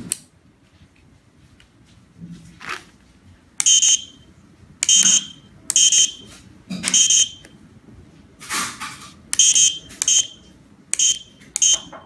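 Piezo buzzer on a 433 MHz wireless remote-code test board giving about eight short, high-pitched beeps at irregular intervals as its push-buttons are pressed and codes are sent and received.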